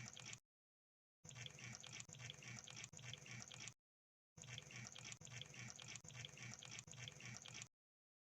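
Crab sound effect: faint, wet, rapid clicking and crackling, in stretches a few seconds long that cut off into dead silence, three times.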